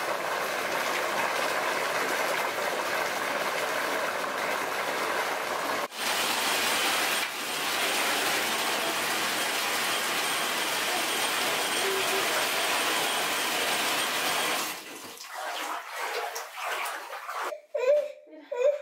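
Bathtub tap running full, water pouring from the spout into the tub in a steady rush. It stops about fifteen seconds in, leaving quieter scattered sounds.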